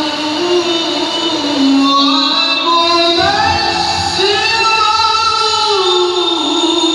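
A voice reciting the Qur'an in tilawah style, drawing out long melismatic notes that glide up and down in pitch.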